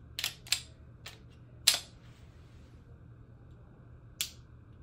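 Unloaded Glock 34 Gen 3 pistol being handled and dry-fired: a handful of sharp metallic clicks of slide and trigger. A close pair comes early, the loudest about a second and a half in, and one more near the end as the pistol is aimed.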